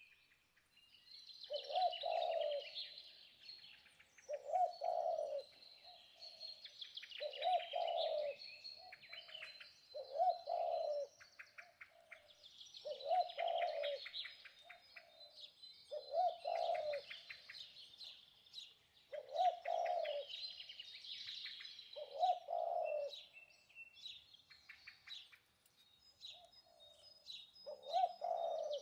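A dove cooing over and over, one call of about a second every three seconds, while small birds chirp and twitter throughout.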